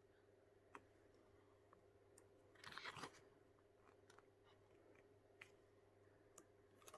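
Near silence with a few faint ticks, and a soft paper rustle about three seconds in as a page of the album's photo book is turned.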